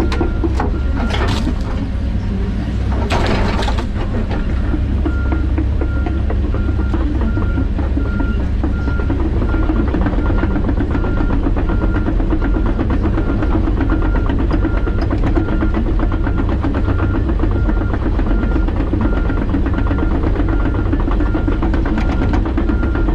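John Deere 130G excavator's diesel engine running steadily under work. Two short crackling bursts come about one and three seconds in, and a faint repeating beep sounds throughout.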